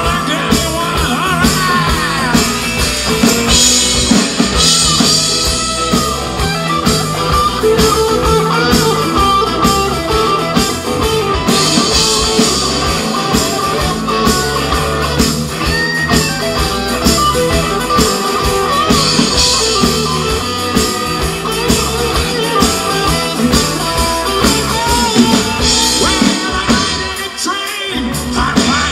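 Live rock band playing a rock and roll number: electric guitars, bass guitar and drum kit, with a lead vocal. The bass and drums briefly drop out near the end.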